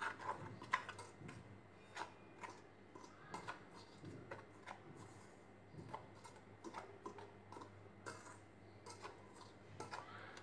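Small wire whisk stirring a dry flour-and-spice mix in a stainless steel bowl: faint, irregular light ticks of the wires against the metal.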